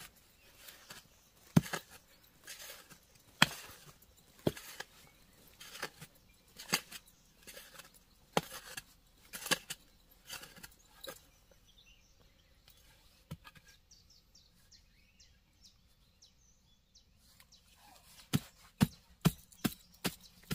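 A blade chopping wood in irregular, sharp strikes. The strikes pause for several seconds in the middle, then come in a quicker run near the end.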